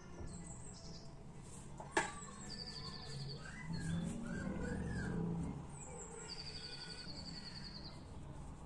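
A small bird chirping: two quick trills of rapidly repeated high notes, the second longer. There is a single sharp click about two seconds in.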